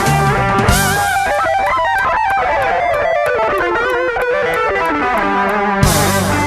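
Electric guitar played through a Boss GT-1000 multi-effects processor: a lead line with string bends and vibrato. A low backing part drops out about a second in and comes back near the end.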